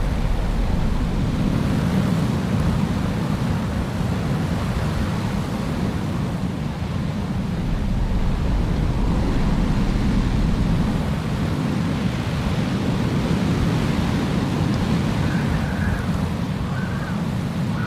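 Blizzard wind blowing steadily as a deep rush, swelling and easing in slow gusts, with a faint higher whistle a few times near the end.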